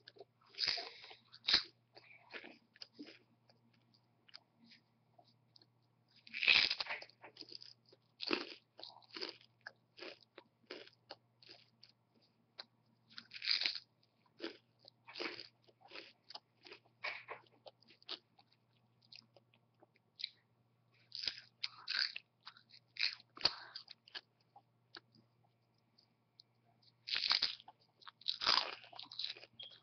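A person biting into and chewing a crisp raw apple: loud crunching bites come every several seconds, with quicker, quieter chewing crunches in between.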